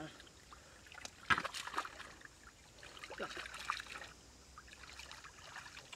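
Hands splashing and sloshing through shallow muddy water while groping in the mud for catfish, in two irregular bursts of splashes about a second in and again around three seconds in.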